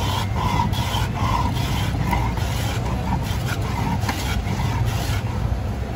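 Wooden hand plane scraping shavings off a block of hard peanut brittle in repeated short strokes, about two a second, stopping about five seconds in, over a steady low rumble.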